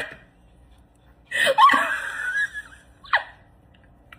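A person laughing: a burst of laughter about a second and a half in, then a short, high falling cry near three seconds.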